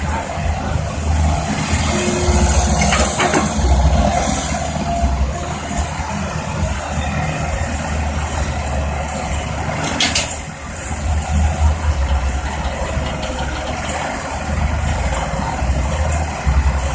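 Tracked excavator's diesel engine running under working load, its low rumble swelling and easing, with a sharp clank about three seconds in and another about ten seconds in.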